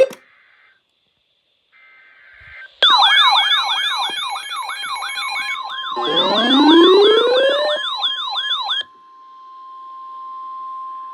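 Emergency alert audio: a short burst of digital header tones, then several electronic sirens wailing and yelping at once, one winding steadily upward. About nine seconds in the sirens cut off suddenly, leaving a steady single-pitch attention tone of the kind that comes before a weather-radio warning.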